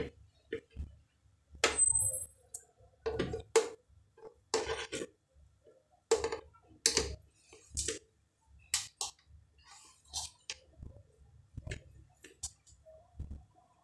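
Chunks of boiled cassava and arrowroot dropped by hand into a plastic blender jug: a string of irregular knocks and taps against the plastic, with a brief high clink about two seconds in.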